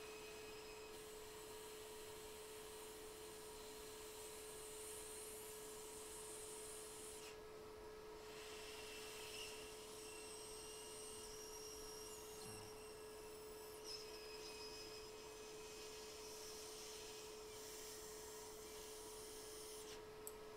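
Hot air rework station running steadily while it heats a stacked iPhone XS logic board to reflow the solder joints: a faint constant hum with a light hiss.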